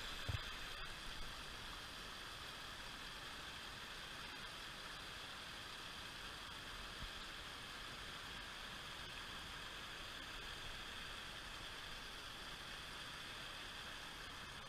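Shallow rocky creek running over stones in riffles: a steady rushing hiss. A single low knock sounds just after the start, with a couple of smaller bumps in the first second or so.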